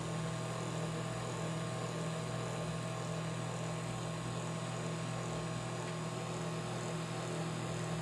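Microwave oven running a heating cycle: a steady mains hum with the whir of its fan, from the high-voltage transformer powering the magnetron. The oven is heating again after its blown fuse was replaced.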